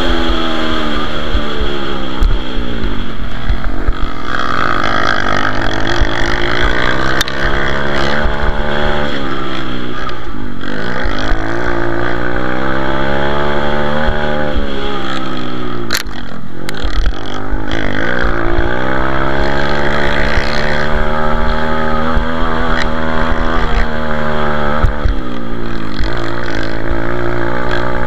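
Pit bike engine at race pace, close up, revving hard and falling back over and over, its pitch climbing and dropping as it works through the gears and eases for turns, over a steady rush of wind. A single sharp knock a little past halfway.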